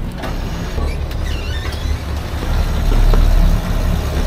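Cockpit winch hauling in the orange line to hoist a catamaran's mainsail: a steady low mechanical drone that grows louder about three seconds in.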